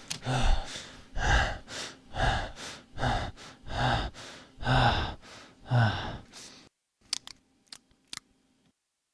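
A person breathing heavily, about seven gasping breaths in a row with some voice in each. They stop after about six and a half seconds, followed by a few faint clicks.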